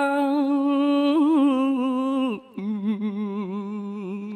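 Solo male Khmer smot chanting: one voice holds a long, wavering note. After a short break about two seconds in, it drops to a lower held note.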